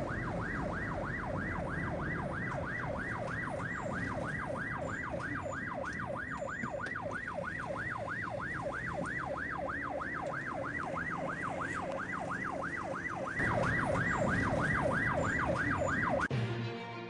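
Emergency vehicle's electronic siren in yelp mode, rapidly rising and falling over the low rumble of the vehicle on the road. It gets louder near the end, then cuts off suddenly.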